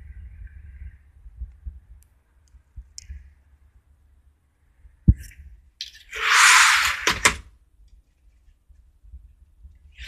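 Low wind rumble on the phone's microphone, then a sharp click about five seconds in, like a door latch. Next comes about a second and a half of loud rushing swish with two quick knocks as a door is passed through and shut, and another rushing burst near the end.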